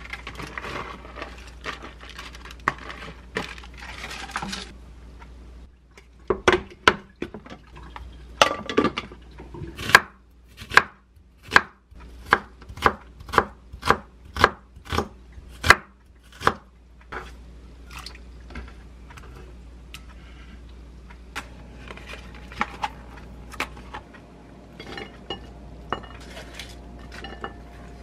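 Kitchen knife slicing an onion thinly on a wooden cutting board: a steady run of sharp knocks, about two a second, for some ten seconds. Before it comes the rustle of bagged salad leaves being tipped from a plastic bag into a mesh strainer. After it come quieter, scattered clicks and taps of food handling.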